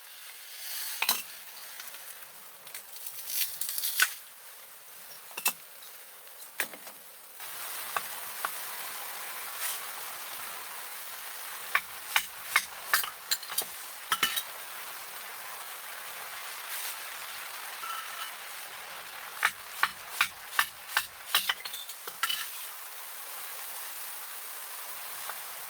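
Food sizzling in a pan, with a steady sizzle starting suddenly about seven seconds in, and clicks and clinks of a utensil stirring against the pan.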